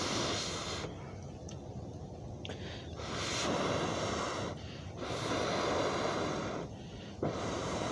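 Long breaths blown through a telescopic metal fire-blowing pipe to stoke a campfire: a hollow rushing of air in repeated blows of about a second and a half, with short pauses for breath between.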